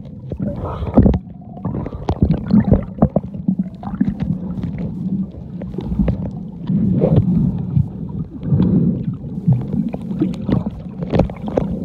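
Muffled underwater sound picked up by a camera held below the surface: an uneven low rumble with many irregular clicks and knocks.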